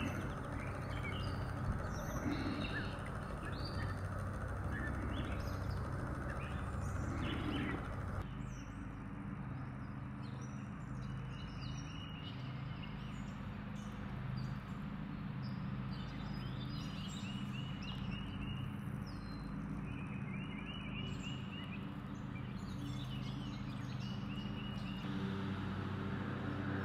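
Birds chirping, one of them repeating a short trill several times, over a steady low engine-like hum. A broader rushing rumble drops away about eight seconds in.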